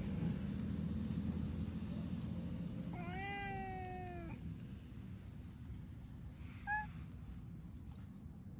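Orange tabby cat meowing: one drawn-out meow of about a second and a half, sliding slightly down in pitch, followed a couple of seconds later by a brief, higher call.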